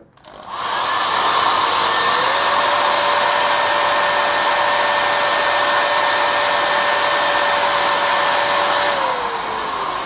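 Handheld hair dryer switched on and blowing air into a digital flow meter's inlet: a steady rush of air with a thin whine that steps up in pitch about two seconds in and falls away as the dryer winds down near the end.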